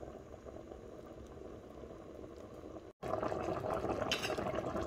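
Thick tomato-and-eggplant stew with meat simmering in a pot, a soft steady bubbling. After a brief break about three seconds in, louder, busier bubbling of the reduced sauce.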